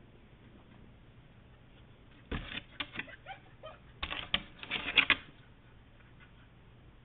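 Dog pawing at a glass-paned door: rapid clattering taps of claws on the glass and frame. They come in two flurries, the first a little over two seconds in, the second and louder one around four to five seconds in.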